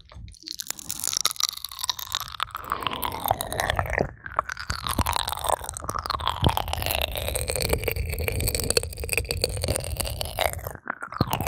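Ear-cleaning ASMR sounds: an ear-pick tip scratching and rubbing close to the microphone, a dense crackle with a slowly shifting hollow tone, briefly pausing twice.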